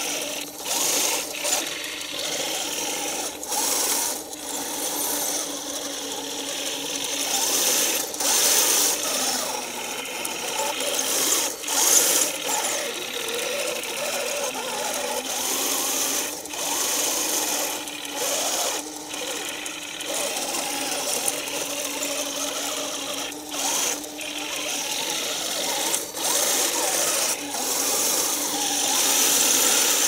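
Heng Long Panther 1/16 RC tank driving, its small electric track motors and gearboxes whining steadily as the tracks churn through snow and leaves. The sound drops out briefly a number of times.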